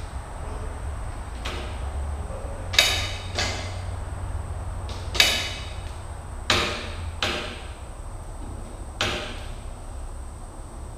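A series of sharp metallic knocks and clanks, about six spread over several seconds, each ringing briefly, from a man handling and moving about on the steel frame of a Cat D3C Hystat dozer before its engine is started.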